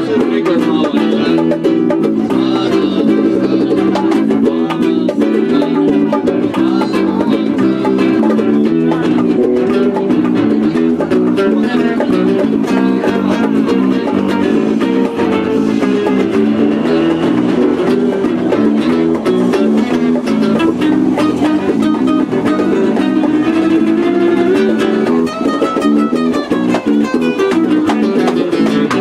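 Live band music: an acoustic guitar and an electric bass playing a steady, loud tune together.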